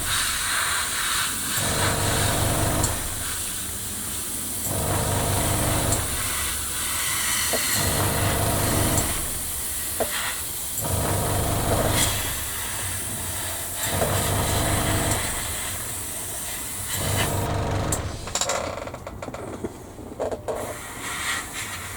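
Airbrush hissing as it sprays paint, over a low machine hum that comes and goes every two to three seconds. The hiss stops a few seconds before the end.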